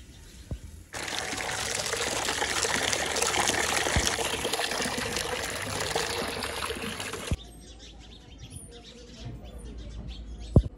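Water gushing from a pipe and splashing into a plastic tub: a steady rushing splash that starts suddenly about a second in and stops suddenly about seven seconds in. A sharp click comes near the end.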